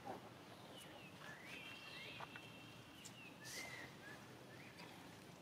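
Near-silent outdoor background with faint, high-pitched chirping calls from about a second in to about four seconds in, and a couple of soft clicks.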